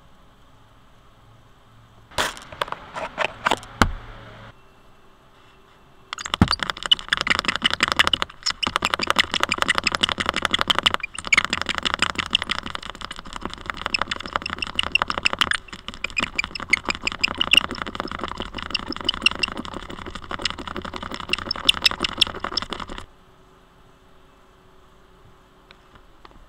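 A hand spray bottle and a cloth working over a cracked car windscreen, picked up through the glass by a dashcam stuck to it. There is a short run of sharp clicks about two seconds in, then some seventeen seconds of dense, rapid clicking and rubbing on the glass that stops abruptly, as the glass is cleaned ahead of the repair.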